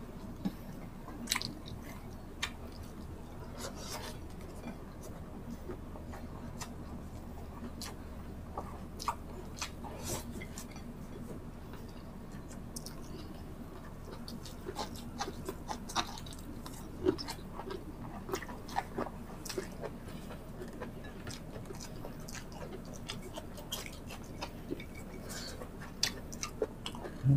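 Close-miked chewing of a mukbang meal eaten by hand: irregular wet mouth clicks, smacks and soft crunches, over a faint steady low hum.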